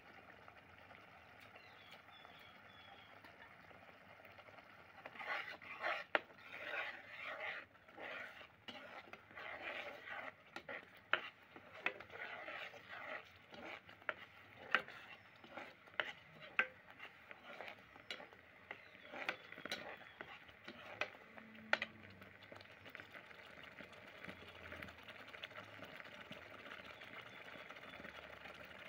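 A perforated steel ladle stirring thick, bubbling rajma curry in a metal pot. It scrapes and clinks against the pot from about five seconds in, with many sharp knocks, then eases to occasional taps near the end.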